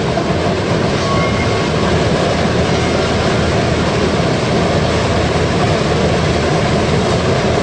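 Biomass sawdust burner firing: a loud, steady rushing noise of the burner running, with no change in level.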